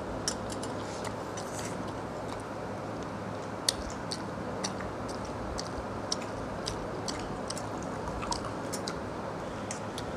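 People eating watered rice and fried cauliflower by hand, with chewing and scattered sharp clicks and smacks and one louder click a little over three seconds in. A steady background hiss runs underneath.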